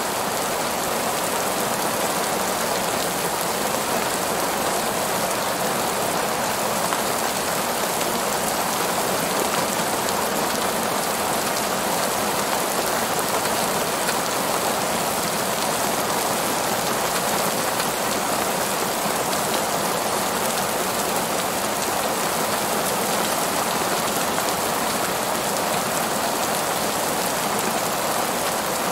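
Heavy rain falling steadily on the pavement of a parking lot.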